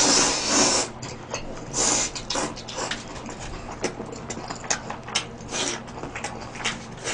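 Close-miked mouth sounds of a person eating noodles: a long slurp in the first second, shorter slurps around two seconds in and near the middle, and wet chewing with small clicks in between.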